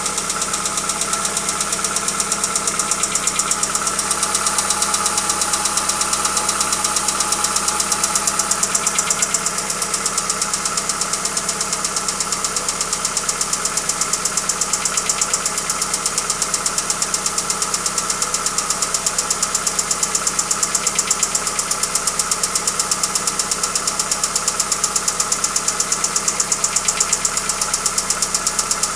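Hyundai Accent engine running steadily with a fast, even knocking tick, the engine knock it is being checked for.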